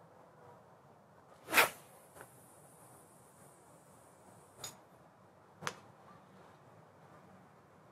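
A carp rod being cast: one sharp whoosh as the rod whips forward, then a thin high hiss of line peeling off the reel for about three seconds, cut off by a sharp click, with a second click a second later.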